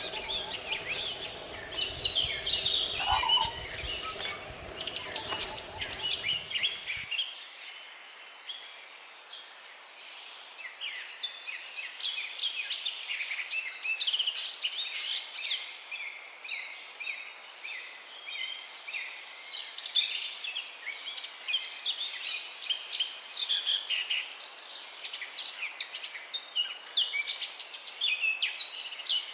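Many small birds chirping and twittering together, a dense chorus of rapid, short, high calls over a steady hiss. For about the first seven seconds a low background rumble sits beneath the birds, then cuts off abruptly.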